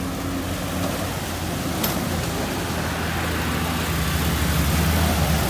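Military jeep's engine running steadily as it drives through a shallow river, its wheels throwing up splashing spray; the sound grows a little louder toward the end.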